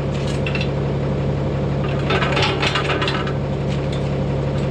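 Tractor engine idling steadily, with a brief rattle about two seconds in.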